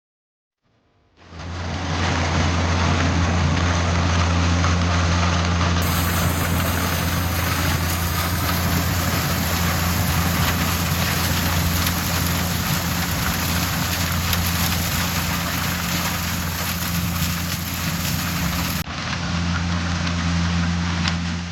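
Yanmar YH700M combine harvester running with a loud, steady low drone and a broad mechanical rush.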